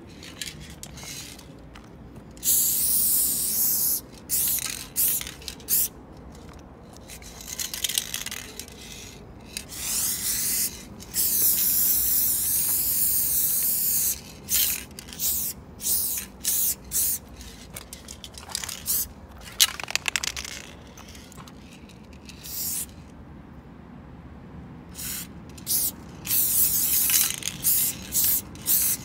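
Aerosol spray-paint can spraying in bursts: a few long hisses of one to four seconds and many short puffs.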